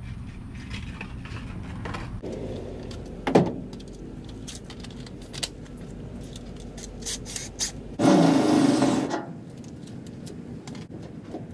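Handling sounds from fitting a molding to a pickup's tailgate: scattered clicks and light scrapes, then one louder scraping rustle lasting about a second, eight seconds in, over a low steady rumble.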